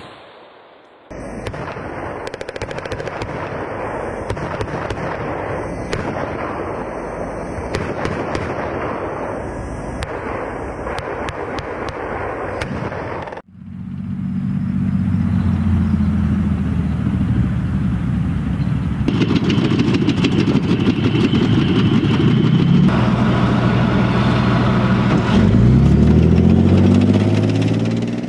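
Puma infantry fighting vehicle firing its 30 mm MK30-2/ABM automatic cannon in rapid fire for about twelve seconds. Then, after an abrupt change, Leopard 2 tanks' diesel engines run as they drive past on tracks, the engine note rising near the end.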